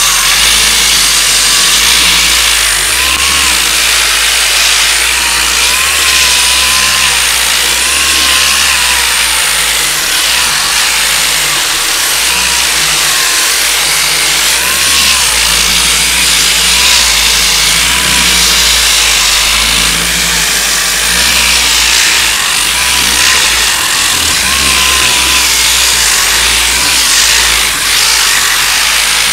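Power sander running continuously on body filler, a loud steady whirring with a faint tone that wavers slightly in pitch.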